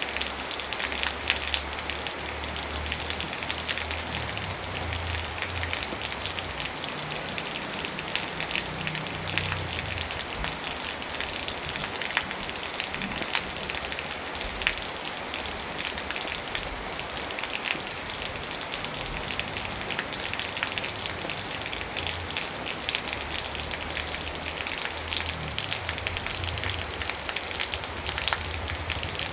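Steady rain falling, with dense patter of drops striking a surface and a low rumble that swells and fades now and then.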